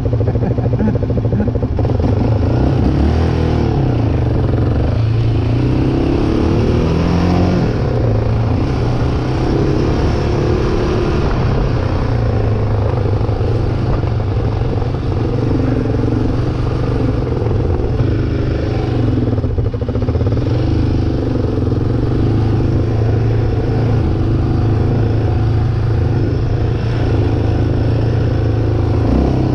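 Off-road vehicle engine running steadily, its pitch rising and falling as the throttle changes.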